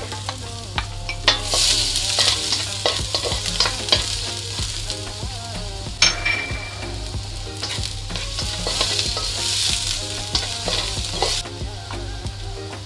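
Chopped garlic and sliced onions sizzling in hot oil in a nonstick wok, stirred with a utensil that clicks and scrapes against the pan. There is a sharper tap about halfway through.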